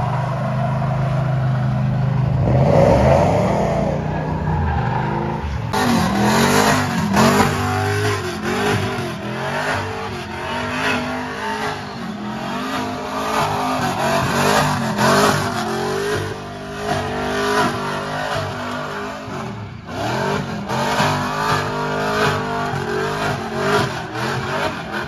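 Pickup truck engine revving hard, its pitch rising and falling over and over as the truck does donuts, with the rear tires spinning and sliding on asphalt. There is a brief break in the sound near the start and another about three-quarters of the way through.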